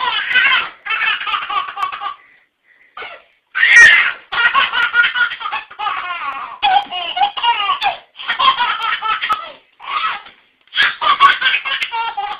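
A baby laughing in repeated high-pitched fits, each a second or two long with short breaks between, the loudest about four seconds in.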